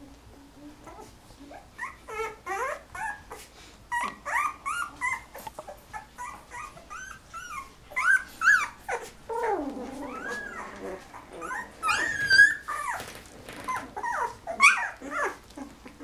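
A litter of 13-day-old golden retriever puppies squeaking and whimpering: many short, high calls that rise and fall in pitch and overlap one another, starting about a second in.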